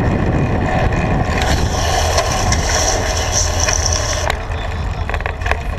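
Wind rumbling on the microphone of a bike-mounted action camera as a fixed-gear bicycle rides on asphalt, with steady tyre and road noise. There is a higher hiss in the middle and a few sharp clicks near the end.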